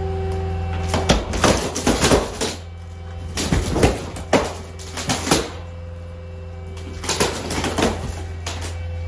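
A compact loader's engine runs steadily while its grapple pushes on a mobile home's wall, bringing three bouts of cracking, creaking and splintering from the wood paneling and framing as the wall gives way.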